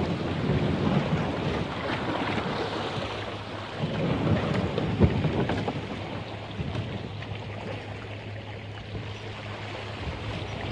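Small waves washing over rough rock at the water's edge, with wind rumbling on the microphone, and a single knock about five seconds in.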